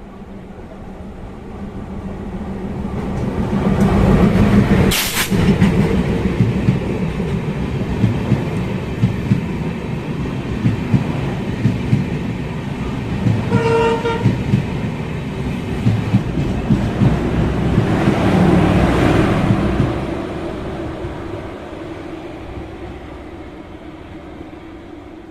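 DEMU train running on the rails at speed: the rumble and wheel clatter swell over the first few seconds and then fade toward the end. There is a sharp crack about five seconds in and a short horn note about halfway through.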